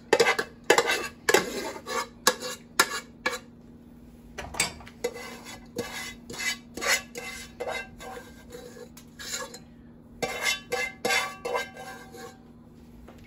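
Metal spoon scooping half-cooked rice and knocking and scraping against metal cookware, in many irregular clinks, a few of them ringing briefly.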